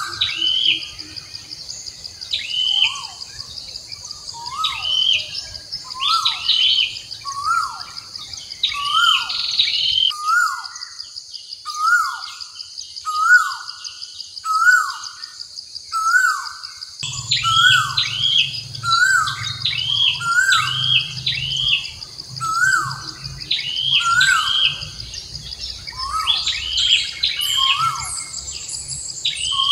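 Bird calls: short notes sliding downward, repeating about once a second, with quicker higher chirps over a steady high-pitched drone. The higher chirps fall away for several seconds midway while the repeating call goes on.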